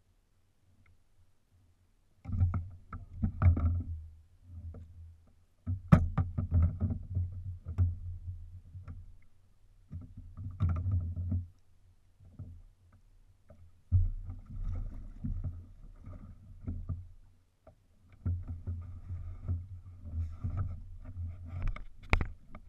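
Water sloshing and slapping against a plastic fishing kayak's hull in irregular bursts, with knocks and bumps of gear against the boat. The loudest knock comes about six seconds in, and a hand handling the mounted camera is heard near the end.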